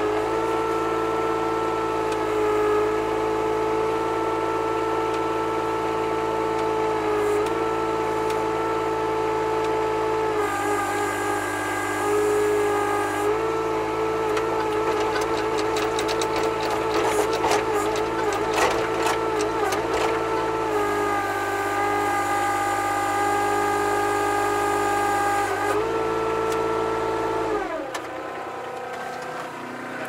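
Schaeff mini excavator's diesel engine running with its hydraulic pump whining, the tones stepping up and down every few seconds as the boom and arm are worked, with some clicking in the middle. Near the end the engine winds down and stops.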